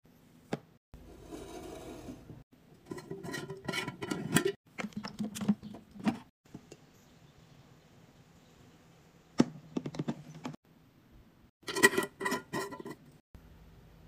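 Clear plastic and glass containers being handled on a stone counter: clusters of sharp clicks and ringing clinks, with a soft steady pour of liquid from a jug into a glass dispenser in the middle.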